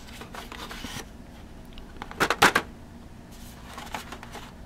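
Rustling and light clicking as a board game box and its contents are handled, with a short cluster of rattling clicks about two seconds in.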